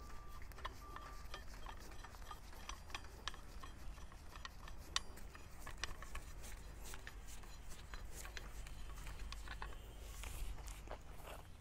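Faint, scattered metallic clicks and rubbing as a steel extension rod is screwed by hand onto a dynamic cone penetrometer's hammer assembly, over a low steady rumble.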